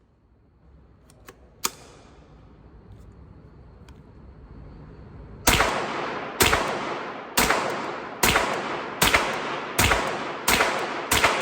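Henry AR-7 .22 LR semi-automatic rifle fired eight times at a steady pace, a bit under a second between shots, each shot with a short ringing tail. A single sharp metallic click comes first, a few seconds before the shots.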